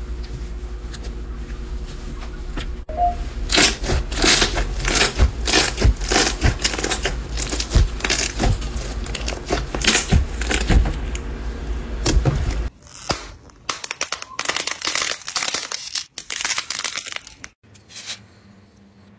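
Hands stretching, pressing and squeezing slime, giving a dense run of irregular sticky crackles and pops that thins out and grows quieter near the end.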